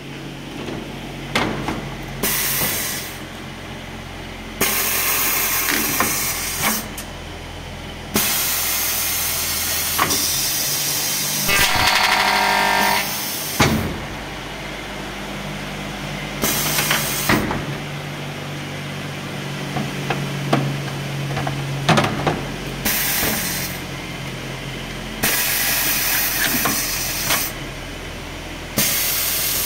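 PVC window corner-cleaning machine running through its cycle: repeated blasts of compressed-air hiss lasting one to four seconds, pneumatic clamps and slides clunking between them, and a steady motor hum underneath. Near the middle a pitched whine lasts about two seconds as the stacked disc cutters spin.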